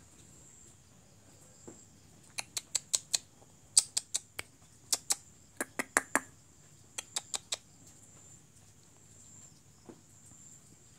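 Five quick runs of sharp clicks, two to four clicks in each run and about sixteen in all, from about two seconds to past seven seconds in. A faint steady high whine sits beneath them.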